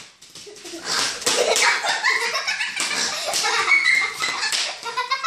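Bubble wrap popping under stamping feet in quick, irregular snaps, mixed with young children giggling and squealing.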